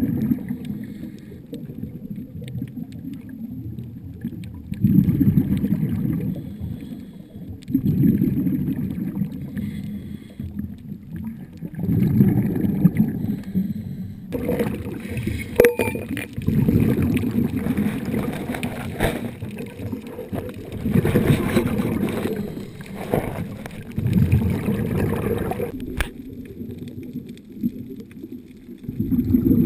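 Heard underwater: the diver's exhaled air bubbling out of a scuba regulator, in gurgling swells about every four seconds. There is a sharp click about halfway through and another near the end.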